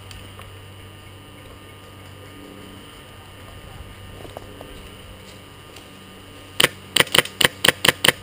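Airsoft rifle firing a quick string of about seven sharp shots near the end, over a steady low hum.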